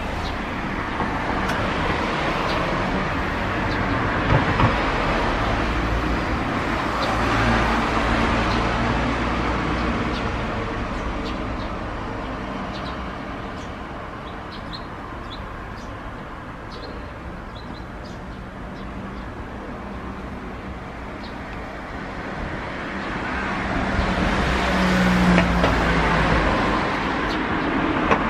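Road traffic: cars passing along a street, the noise swelling in the first few seconds and again about three-quarters of the way through, quieter in between.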